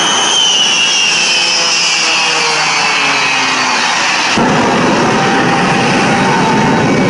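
Jet engine with a high whine that falls steadily in pitch over about four seconds. About four seconds in, a deep rushing noise sets in suddenly and carries on, in time with a wall of pyrotechnic fire going up along the runway.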